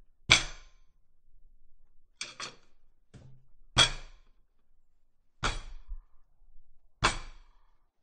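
Pounding on a dinner table: about six sharp blows a second or more apart, one of them a quick double blow about two seconds in, each with a short ring after it.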